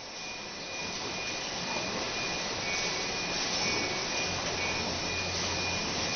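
Steady mechanical running noise of a CD-R/DVD inline production machine and its enclosure fans, an even hiss-like drone with a faint high whine, fading in over the first second.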